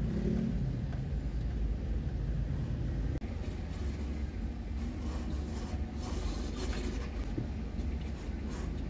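Mitsubishi L300 FB van driving, its engine and road noise a steady low rumble, with a brief sharp drop about three seconds in.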